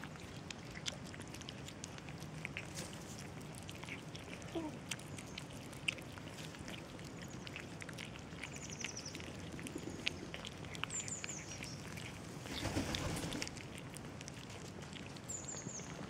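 Kittens eating from a plastic tub of cat food, with many small chewing and licking clicks. Birds chirp in the background, a few short high descending calls. There is a brief rush of noise about three-quarters of the way through.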